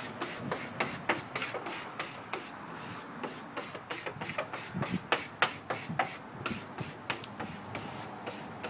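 Plastic squeegee rubbing a vinyl window sticker down onto glass in quick, short scraping strokes, about three or four a second.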